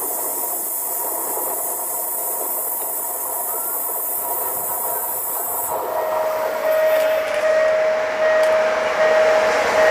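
Steady hiss and rumble of a train out of sight. About six seconds in the sound changes abruptly to a 060-EA type electric locomotive hauling passenger coaches as it approaches, its running noise growing louder with a steady high whine over it.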